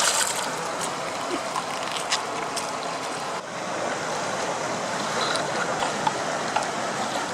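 Flowing stream water, a steady rushing hiss, with a few sharp clicks in the first seconds.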